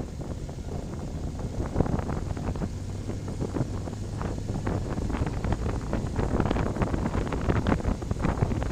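Wind buffeting the microphone of a camera riding on a moving motorcycle, gusty and rumbling, over the low, steady running of the motorcycle's engine. The buffeting grows somewhat louder near the end.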